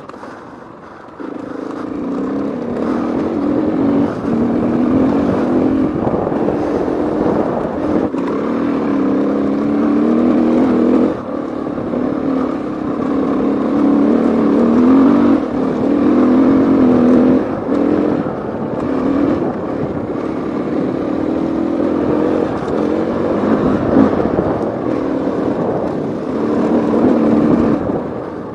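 KTM 450 EXC-F single-cylinder four-stroke enduro engine being ridden hard on a rough dirt trail, its pitch rising and falling with the throttle. It picks up about a second in, with occasional knocks from the bike over the bumpy ground.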